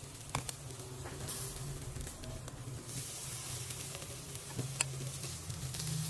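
Fish steaks and skewered meat sizzling on a charcoal grill: a steady hiss with a couple of sharp crackles, over a low steady hum.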